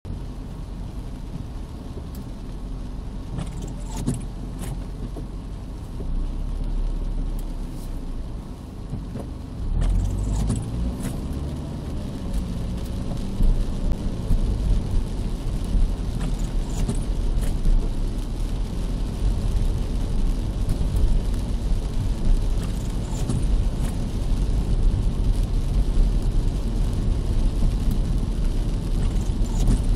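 Car heard from inside the cabin in heavy rain: steady low engine and road rumble with scattered sharp taps, getting louder about ten seconds in as the car moves off along the wet street.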